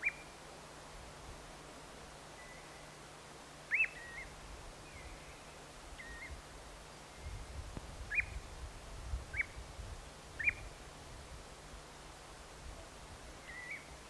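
Common ringed plover calling: short, clear whistled notes that rise sharply, about five of them a few seconds apart, with fainter soft notes in between.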